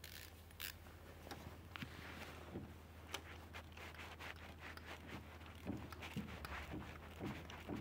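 Faint, irregular clicks and scrapes of a hand tool and metal parts handled on the engine's injector clamps while the fuel injectors are refitted, over a low steady hum.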